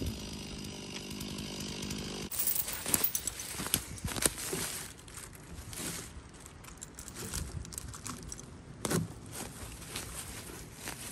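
Chainsaw engine idling steadily, then cutting off abruptly about two seconds in. After that, irregular crunching, rustling and crackling of dry leaf litter and twigs.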